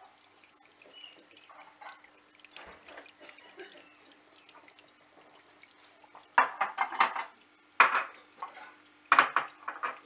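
Dishes and cutlery clinking and clattering loudly in three short clusters in the second half, over the faint trickle of a small tabletop water fountain.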